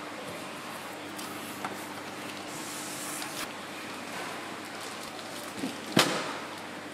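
Cardboard mailer and paper calendar handled by hand, with light rustles and scrapes over a steady hiss and faint hum, and one sharp click about six seconds in, the loudest sound.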